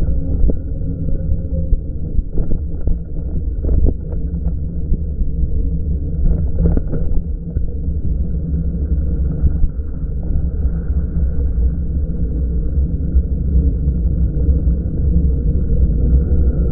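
Steady low rumble of riding noise from an electric bike, with wind on the microphone. A handful of light knocks come between about two and seven seconds in.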